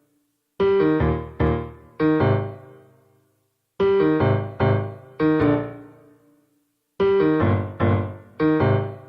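Piano chords struck in groups of three, each chord ringing out and fading. The three-chord phrase plays three times, starting about every three seconds.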